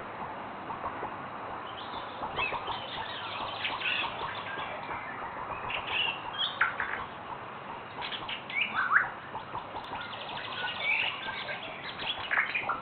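Birds calling: scattered short chirps and whistled notes, some rising and some falling, with a quick rattling run of clicks about ten seconds in.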